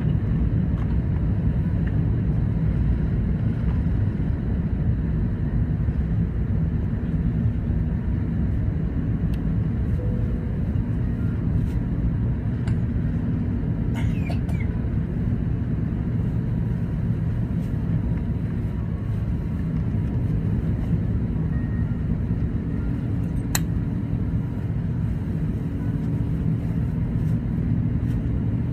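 Steady low roar of an Airbus A380's Rolls-Royce Trent 900 engines at takeoff power, heard inside the cabin, as the jet climbs out after takeoff. A few faint clicks stand out over it.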